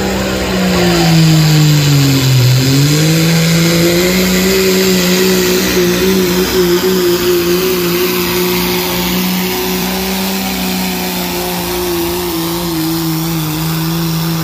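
Cummins turbodiesel of a Dodge Ram pulling truck running at full throttle while dragging a pulling sled. Its pitch sags about two seconds in as the load bites, climbs back, and then holds nearly steady for the rest of the pull.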